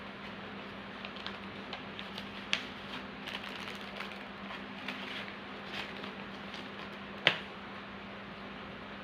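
Light scattered clicks and small rattles of bird leg rings and packing being handled, with a sharper click about two and a half seconds in and the loudest one about seven seconds in, over a steady low hum.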